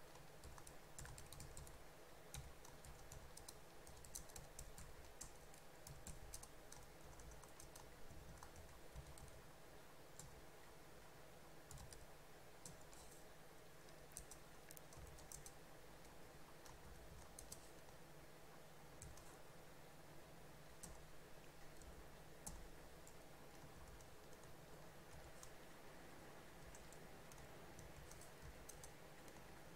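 Faint computer keyboard typing: irregular runs of keystroke clicks over a low steady hum.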